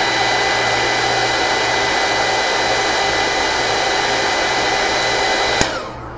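Heat gun blowing steadily to dry wet watercolor paint: a rush of air with a thin, high fan whine. It clicks off near the end and the sound dies away.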